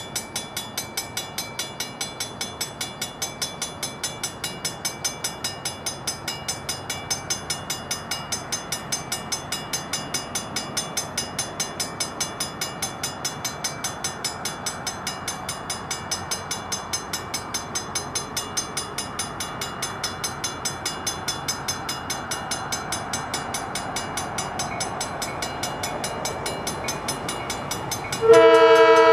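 Grade-crossing warning bells ringing in rapid, even strokes as the flashing signals guard the crossing. Near the end, the approaching EMD GP7u locomotive sounds its multi-note air horn, loud and steady, for the crossing.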